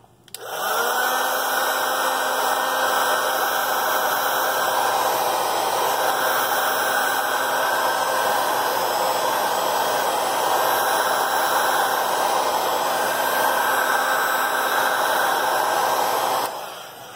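Electric hot-air blower switched on, its fan motor spinning up with a rising hum about half a second in, then blowing steadily before switching off near the end. It is heating a phone's back glass to soften the adhesive so the glass can come off.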